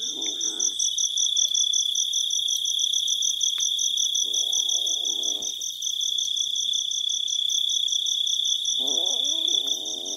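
Night insects calling. A steady high trill runs with a faster pulsed chirp above it, about five pulses a second.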